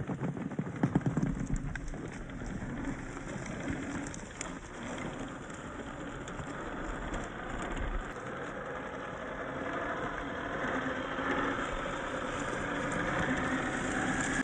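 Radio-controlled Axial SCX10 III 4x4 crawler driving off-road: the whine of its Hobbywing AXE550 brushless motor and gears, which grows stronger over the second half, over the crunch and clicks of tyres on dirt and rocks.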